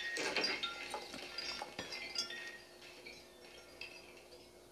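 Wind chime tinkling: many small, high ringing tones that jingle and fade, dying away about three seconds in.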